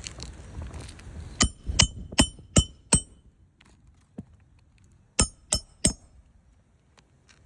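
Hammer driving roofing nails into an asphalt shingle: five quick ringing strikes, then after a pause of about two seconds three more.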